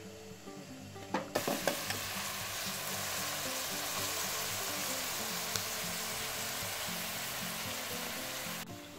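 Diced onions sizzling as they fry in oil in an aluminium pan, with a few knocks of a wooden spoon against the pan as they are stirred about a second in. The sizzle cuts off suddenly near the end, over soft background music.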